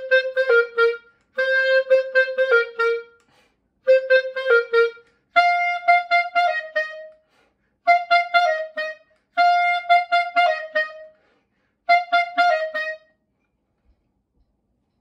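Solo clarinet playing short phrases of clipped, detached notes, seven phrases with brief gaps between them. The phrases step up in pitch about five seconds in, and the playing stops about two seconds before the end.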